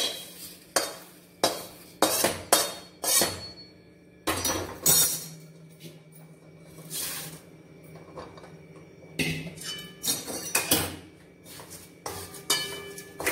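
Metal spoon scraping and knocking against a steel pan while crisp roasted paper poha is scooped out and tipped into another steel vessel, in irregular scrapes and clinks.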